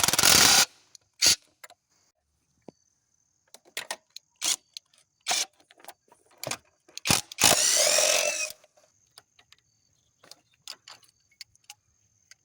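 Metal tools and engine parts clicking and clinking during hand work on the engine, with two brief, louder noisy bursts: one right at the start and one lasting about a second, about two-thirds of the way in.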